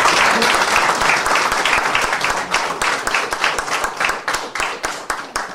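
Small audience applauding: dense clapping that thins out into scattered single claps and stops at the end.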